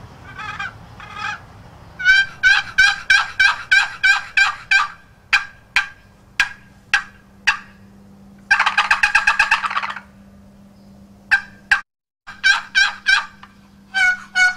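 Wooden box turkey call of California pepperwood with a walnut lid and bottom, its lid scraped across the box in runs of yelps and a few single clucks. About eight seconds in comes a rapid rattling gobble, made with the box held upright, followed by more clucks and yelps.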